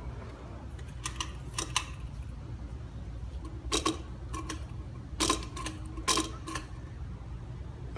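Minka Aire Supra ceiling fan running with a steady low hum, with a series of sharp mechanical clicks, some in quick pairs, every second or so.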